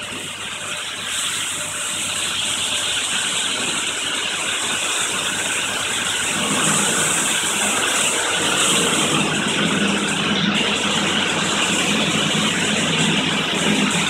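Petit Accutrac 360-i touchless in-bay car wash spraying water onto a car, a steady hiss over a steady low hum. The spray grows louder about a second in and again around six to seven seconds in.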